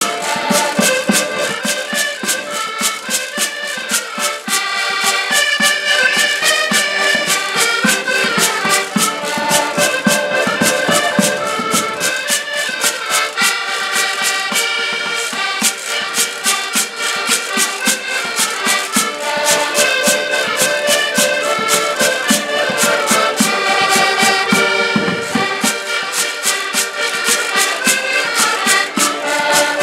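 A folk ensemble of several button accordions playing a lively traditional tune together, over a fast steady beat from a drum and a wooden scraper.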